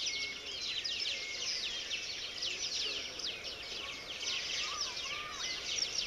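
A dense chorus of many small birds chirping, short high chirps overlapping one another without a break.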